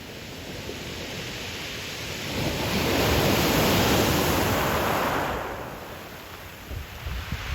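Ocean waves breaking on a beach: one wave swells and crashes about two seconds in, its wash running on for a few seconds before fading, with the next wave beginning to build near the end.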